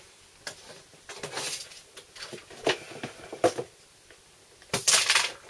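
Rummaging through parts storage at a workbench: scattered small knocks and clicks of items being moved, a short rustle about a second in, and a louder brief rustle near the end, like a plastic bag being handled.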